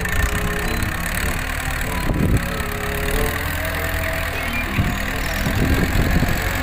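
Wheel loader's diesel engine running steadily, with background music over it.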